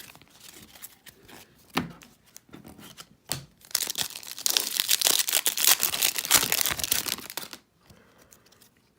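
Trading card pack wrapper being torn open and crinkled by hand, with a few light rustles and clicks first, then a loud dense crackling tear from about four seconds in that stops sharply after about seven and a half seconds.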